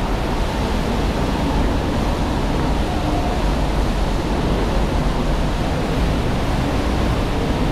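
Steady road-traffic rumble from the flyover overhead: an even, loud noise with no breaks.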